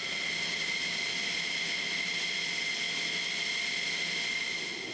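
Jet engine running, a steady high-pitched turbine whine over an even rush of noise.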